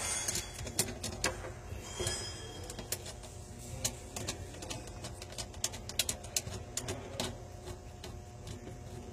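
Irregular small metallic clicks and taps as hands work the drain and disposal mounting fittings under a stainless steel sink, over a steady low hum.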